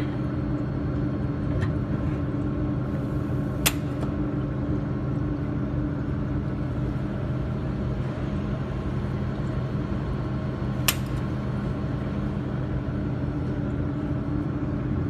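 Steady machine hum with several fixed tones, as of a laser welding machine running idle, broken by two sharp clicks about seven seconds apart.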